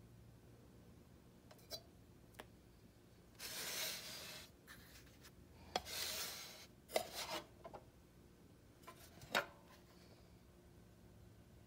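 Handling noise from a vintage cigarette dispenser being moved and turned over by hand. Two spells of rubbing or scraping come about 3.5 and 6 seconds in, and several sharp clicks and taps are scattered through.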